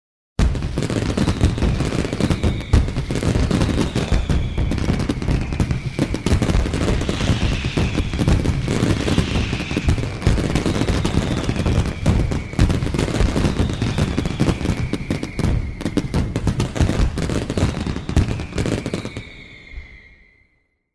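Fireworks going off in a dense, unbroken barrage of bangs and crackles, with several falling whistles running through it. The barrage fades away near the end.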